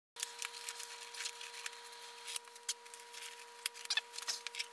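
Faint scattered clicks and rustles of a blue nitrile glove being pulled onto a hand, over a steady electrical hum.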